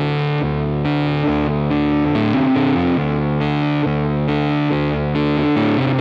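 Background music with distorted electric guitar chords.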